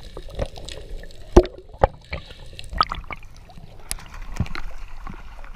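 Water heard through an underwater camera as a diver ascends: scattered sharp clicks and knocks with gurgling, then sloshing and splashing as the camera breaks the surface about four seconds in.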